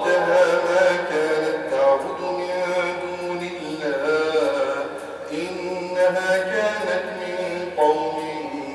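A man's solo melodic Arabic recitation, the imam chanting aloud while leading the Shaf' and Witr prayer, in long drawn-out phrases with short breaks between them.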